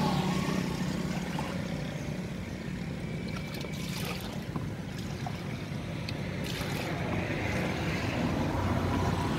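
Steady low mechanical rumble under an even haze of outdoor noise, with a few faint clicks.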